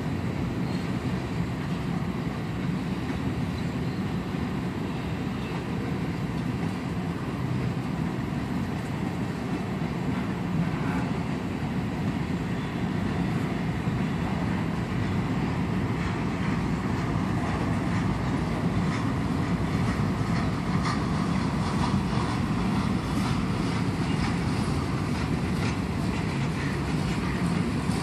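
Freight train cars (covered hoppers, then tank cars) rolling past slowly as the train gathers speed: a steady rumble of wheels on rail that grows a little louder, with sharper clicks of the wheels joining from about halfway through.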